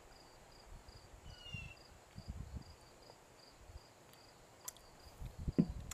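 A cricket chirping faintly and steadily, about four to five pulses a second, with soft low rumbles now and then.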